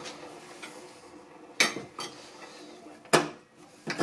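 A few sharp metallic clinks and knocks with a short ring after each, the loudest about one and a half and three seconds in, from metal parts being handled.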